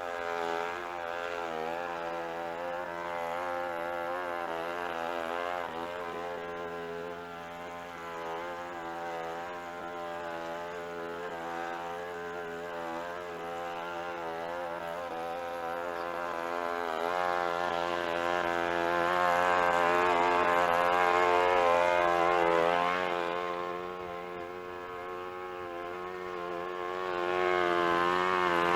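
Small gasoline engine running, its pitch wavering up and down with the throttle and load, louder for several seconds past the middle and again near the end.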